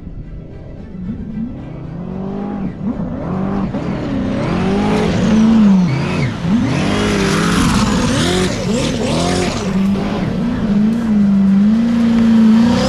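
Turbocharged LS V8 jet ski engine running hard, its revs rising and falling again and again. It grows louder over the first five seconds or so, then holds loud.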